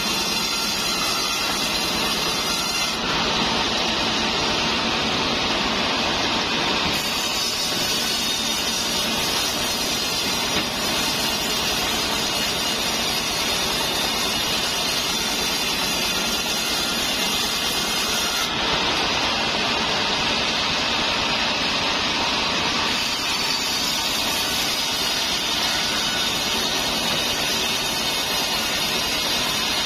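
Large sawmill band saw running and sawing lengthwise through a trembesi (rain tree) log: a steady, dense mechanical whirr with the hiss of the blade in the wood, whose upper edge shifts a few times as the cut goes on.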